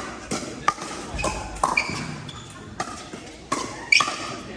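Pickleball paddles striking a hard plastic ball: a run of sharp, irregular pops, about eight in under five seconds.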